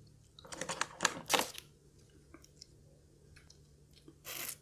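Close-up crunching of a crispy curly fry being bitten and chewed: a quick cluster of crisp crunches from about half a second in, then scattered quieter chewing clicks. There is a short rush of noise near the end.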